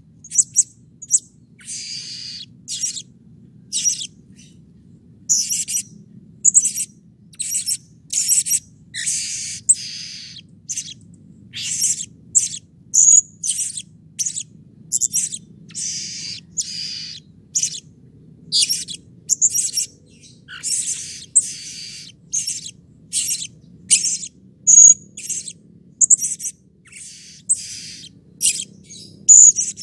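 Blue-crowned hanging parrot (serindit) calling energetically: a steady run of short, shrill, high-pitched calls, more than one a second, over a faint low hum.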